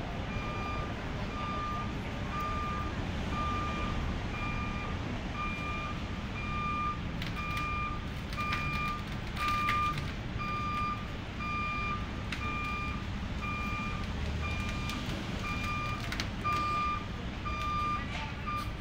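Backup alarm of a crane truck beeping steadily about twice a second as the truck reverses, over the low rumble of its engine.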